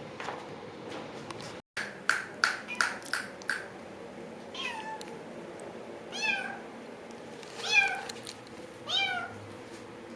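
Domestic cat meowing: a run of five short, sharp sounds about two seconds in, then four drawn-out meows roughly a second and a half apart.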